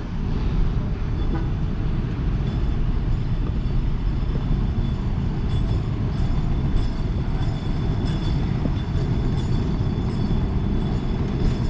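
Steady low rumbling ambient noise of an open-air airport drop-off curb, with cars standing and moving along the kerb.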